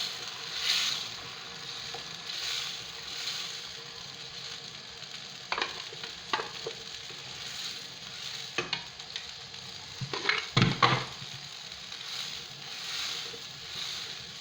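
Tomato puree sizzling in hot oil in a cooking pot as it is stirred in, the hiss swelling with each stir. The spoon clicks and knocks against the pot now and then, loudest in a cluster of knocks about ten seconds in.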